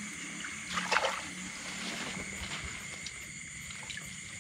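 A hand splashing and sloshing in shallow muddy water while groping in a flooded crab burrow, with the loudest splash about a second in.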